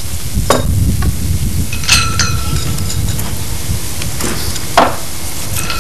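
Steady low rumble and crackle on an outdoor microphone, with a few sharp clicks and a brief ringing tone about two seconds in.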